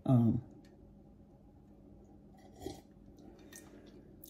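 A short vocal sound at the very start, then quiet with a few faint clinks of a metal spoon stirring coffee in a ceramic mug.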